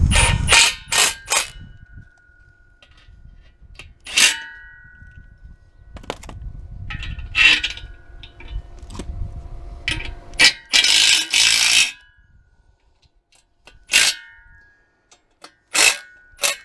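A string of sharp metallic clinks and clangs, several ringing briefly, from steel tools and hardware being handled and set down, with a scraping rustle of about a second and a half near the middle.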